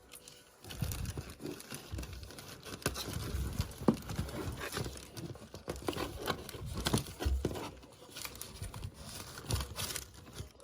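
Crinkling and rustling, with many small irregular taps and a few dull low thumps.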